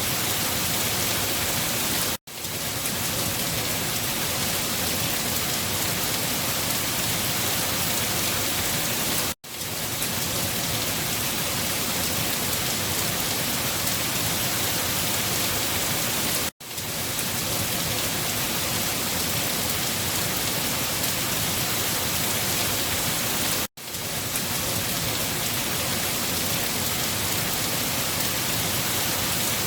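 Steady rain hissing without pause, except that it cuts out four times for an instant, about every seven seconds, and quickly fades back in each time. This is the sign of a short rain recording played on a loop.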